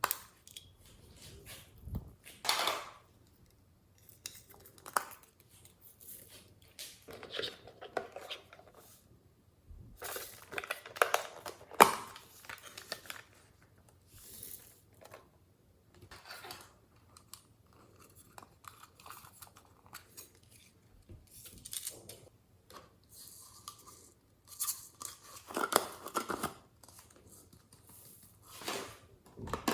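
Slime being squeezed, stretched and poked by hand, giving irregular crackling and popping squelches.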